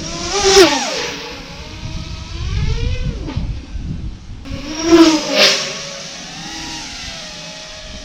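FPV racing quadcopter making fast low passes: the whine of its motors and propellers swells and falls in pitch as it goes by, twice, about half a second in and again around five seconds in.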